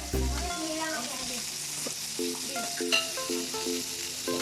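Samgyupsal (pork belly slices) sizzling on a grill with a steady hiss, over background music with a repeating beat. A sharp click about three seconds in.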